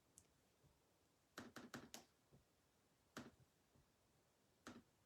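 Near silence broken by a few faint, short clicks: a quick run of four about one and a half seconds in, then single clicks near the middle and near the end.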